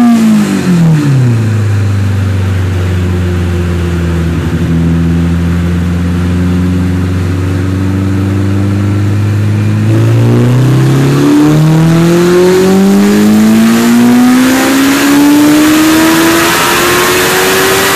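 2008 Honda CBR1000RR inline-four engine with a Taylormade Racing exhaust, running on a dyno. The revs drop back at the start and hold steady for several seconds. About ten seconds in, the revs begin a long, even climb under load, a dyno pull.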